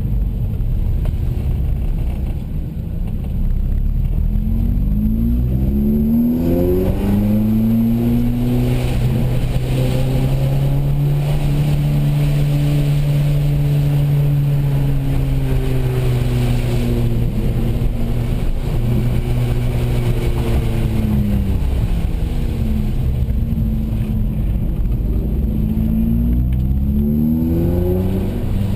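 Car engine heard from inside the cabin: the revs climb a few seconds in, hold steady, drop away past the middle and climb again near the end, over a constant low road rumble.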